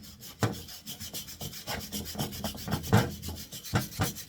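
Quick back-and-forth scraping and scrubbing strokes, several a second with a few harder strokes: grime being scrubbed off an old part to uncover its voltage marking.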